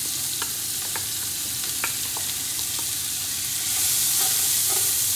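Chopped onions sizzling in hot olive oil in an enamelled cast-iron pot, stirred with a wooden spatula that gives a few light knocks against the pot. The sizzle grows louder about three and a half seconds in.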